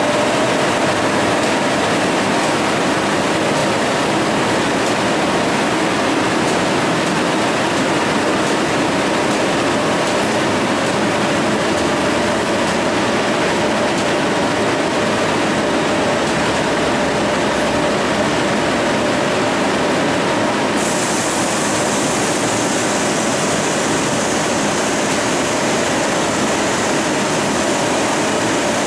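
Automatic car wash's air-dryer blowers running: a loud, steady rush of air with a steady hum in it. About two-thirds of the way through, a higher hiss joins in.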